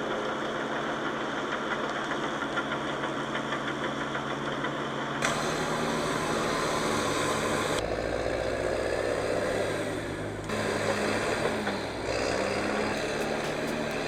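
Diesel engines of heavy forestry machinery running under load, the sound changing abruptly several times as one clip cuts to the next.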